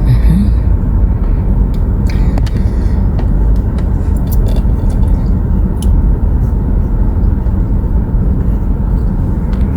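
Steady low rumble of a car driving on the road, engine and road noise with a few faint clicks.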